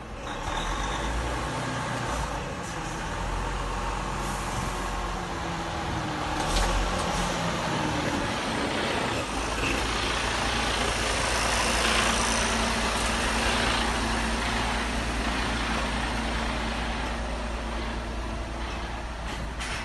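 Diesel engine of a Mercedes-Benz semi-truck running as the tractor unit and its trailer roll slowly past close by, with tyre noise. About halfway through the engine settles into a steady low hum as the cab passes.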